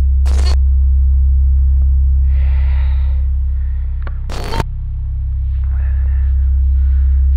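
Loud steady low electrical hum, like the mains hum of an old VHS tape. Two short crackling bursts break through it, one about half a second in and one about four and a half seconds in.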